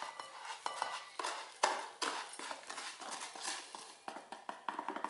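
A silicone spatula scraping and tapping crushed digestive biscuits out of a plastic tub into a glass bowl, as an irregular run of knocks and clicks.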